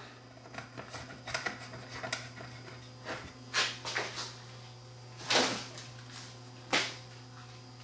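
Coaxial cable being handled and connected on an open metal chassis: scattered light knocks and rustles, the loudest about three and a half, five and a half and nearly seven seconds in, over a steady low hum.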